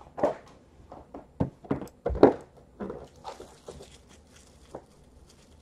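A sealed cardboard trading-card hobby box being picked up and handled: scattered knocks and taps, the loudest about two seconds in, with light rustling of its plastic wrap in the second half.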